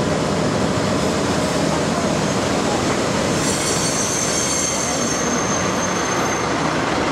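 DD51 diesel locomotive rolling slowly along a station track as it eases up to couple onto the sleeper train's coaches, with a steady running rumble. Its wheels start squealing with a thin high tone about three seconds in.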